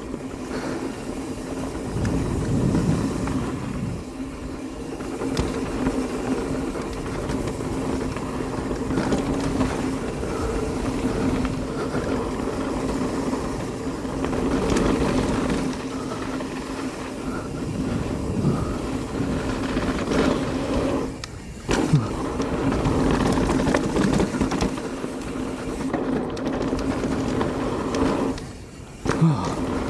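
Mountain bike riding a dirt jump trail: steady tyre roll, rattling of the bike and wind on the helmet-camera microphone. Twice the sound drops away briefly and ends in a sharp thud, as the wheels leave the ground on a jump and land.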